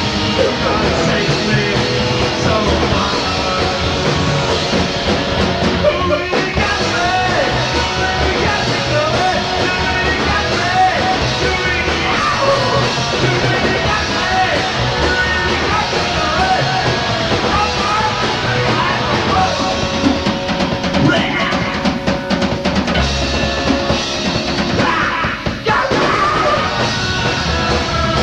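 Rock band playing with a drum kit and singing, loud and driving throughout.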